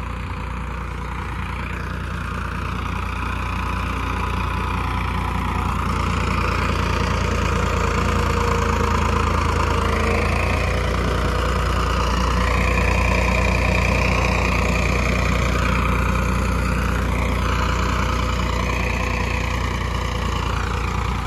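Farmtrac 60 Super Max tractor's diesel engine running steadily, swelling a little louder about a third of the way in and easing off near the end.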